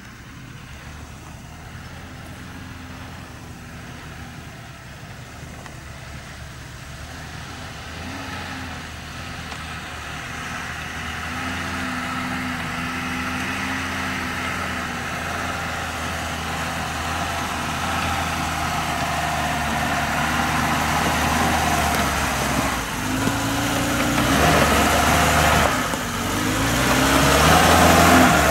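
Lada Niva's engine pulling up a slope toward the listener, growing steadily louder as it nears. The revs drop and rise again a few times in the last several seconds as it comes close.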